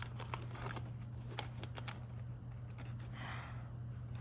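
Sporadic small clicks and soft rustling of hands working small plastic parts and wiring on an RC truck, over a steady low hum.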